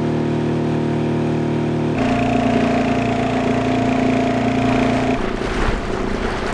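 Small outboard motor on an inflatable dinghy running steadily under way. Its pitch jumps abruptly to a different note about two seconds in, and near the end the engine tone gives way to more rushing water and wind noise.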